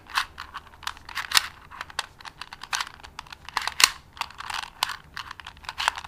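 Plastic 2x2x2 Rubik's-type cube having its layers turned quickly by hand: a rapid, irregular run of clicks and clacks.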